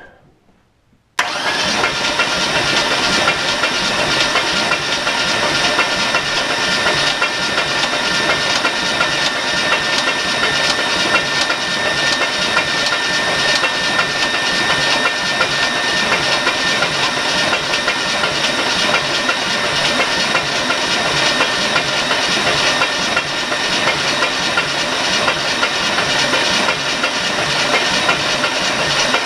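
A truck engine being cranked over on its starter motor without firing, turning at about 200 RPM, with a steady starter whine and an even, rapid pulsing. It cuts in sharply about a second in and keeps going without a break, the engine being cranked to prime its oil system until oil reaches the rocker arms.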